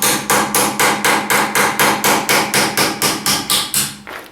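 Hammer striking a steel tractor part in a quick, steady run of about four blows a second, each blow ringing the metal. The hammering is driving out an old bushing that has worn razor thin.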